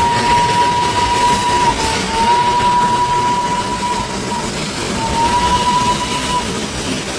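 Darjeeling Himalayan Railway toy train sounding its whistle: three long single-pitch blasts with short breaks between them, the last one shorter. Guitar-led background music plays underneath.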